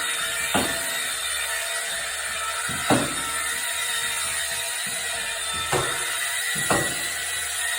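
Four sharp knocks from renovation work at irregular intervals, over a steady hiss.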